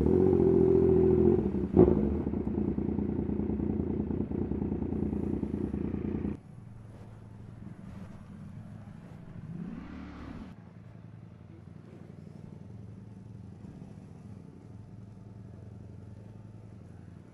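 Yamaha MT-09 inline-three motorcycle engine running steadily, with a single sharp crack about two seconds in. About six seconds in the loud engine sound cuts off abruptly, leaving a much quieter low engine hum, with a brief rising-and-falling tone near the middle.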